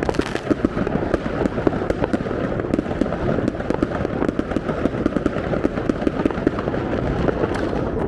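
New Year's fireworks and firecrackers set off by many people at once across a city, making a dense, continuous crackle of bangs with no pause.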